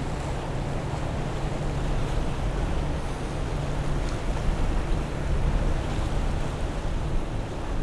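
Boat engines running with a steady low drone over the wash of waves in an ocean inlet, with wind rumbling on the microphone.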